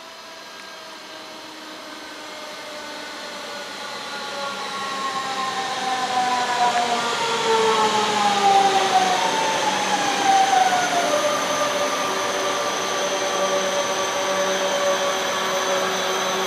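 Red DB Regio electric multiple unit braking into the station. It grows louder as it comes close, and several whining tones from its traction drive glide downward together. About eleven seconds in, the sound settles into a steady electric hum and hiss as the train creeps along slowly.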